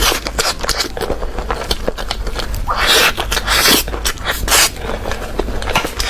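Close-miked eating of soft cake with a metal spoon: sticky, wet chewing and lip smacking heard as quick clicks, with a louder scraping noise about three seconds in.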